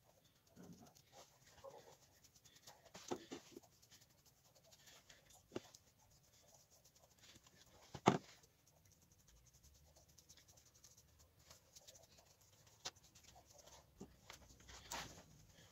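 Faint, scattered clicks and light knocks at irregular intervals, the loudest a single knock about eight seconds in.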